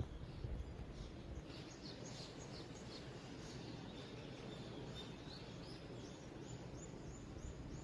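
A small bird chirping over and over: a long series of short, high chirps, each falling in pitch, over a steady low outdoor rumble.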